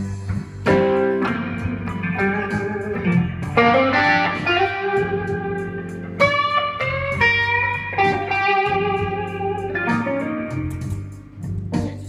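Amplified Les Paul-style electric guitar playing a blues lead: held single notes, some bent upward in pitch.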